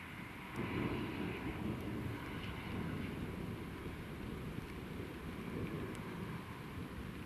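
Distant thunder rumbling after a lightning strike, swelling about half a second in and rolling on unevenly.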